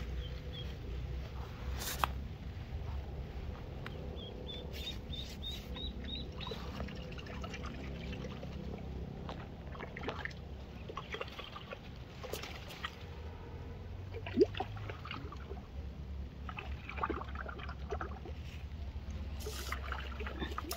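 Light water trickling and splashing with rustling leaves and grass, over a steady low rumble, and a quick run of about seven short high peeps about five seconds in.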